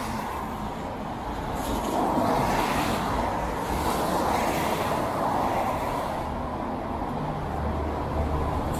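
Road traffic on a wet street: cars passing with their tyres hissing on the rain-soaked asphalt, swelling as one goes by. A deeper engine hum comes in about seven seconds in.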